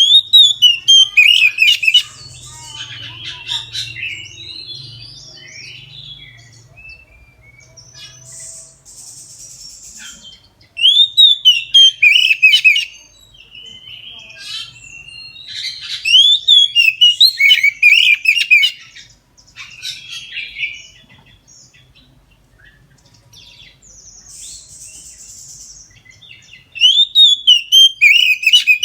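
Oriental magpie-robin (kacer) in full song: four loud phrases of rapid, rising and falling whistled notes, each about two seconds long, with quieter chattering and buzzy calls in between.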